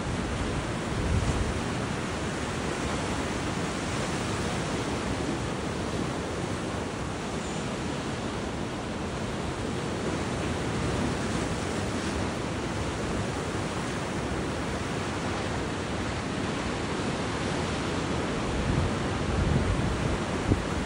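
Atlantic surf breaking and washing up a sandy beach: a steady rush of waves. Wind buffets the microphone in low rumbles about a second in and again near the end.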